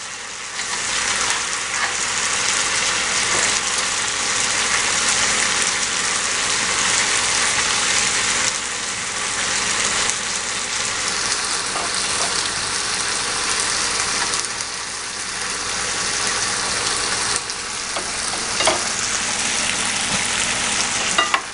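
Battered chicken in orange sauce sizzling steadily in a hot pan, with a few light clicks near the end.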